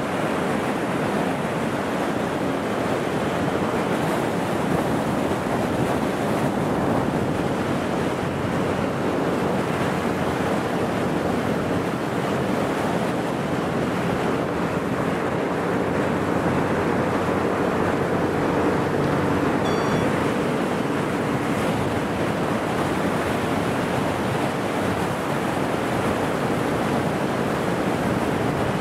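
Steady rush of water and wind buffeting the microphone aboard a moving motorboat, with a faint engine drone underneath.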